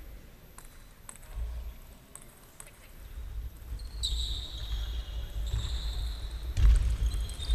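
Table tennis ball bouncing and being struck: a few sharp separate clicks at first, then a rally with a loud knock near the end, over a low hall rumble. A thin high tone runs through the second half.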